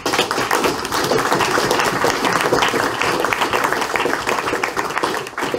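Audience applauding: many people clapping densely, easing off near the end.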